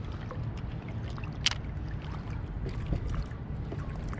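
Wind rumbling on the microphone and water lapping against an inflatable float tube, with scattered small ticks and one sharp click about a second and a half in.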